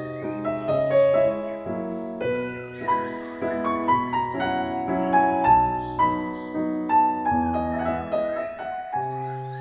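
Gentle background piano music, a melody of single notes over low sustained chords.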